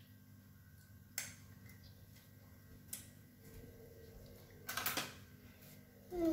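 Light kitchen clatter: two sharp clicks, about one and three seconds in, then a short scraping rattle a little before five seconds, over a low steady hum.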